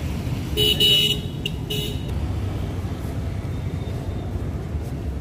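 A vehicle horn honks twice: a longer honk about half a second in and a short one near two seconds, over a steady low rumble of street traffic.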